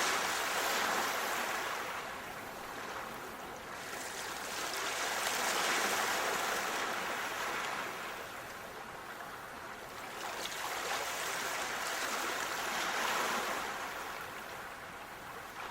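Sea waves washing in and drawing back, swelling three times in slow surges.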